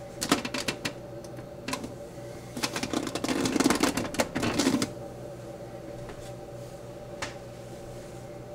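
Metal portafilter clicking and scraping against the group head of a La Pavoni Cellini espresso machine as it is seated and twisted to lock in. A few clicks at first, then a dense rattling run of clicks for about two seconds, and one last click near the end.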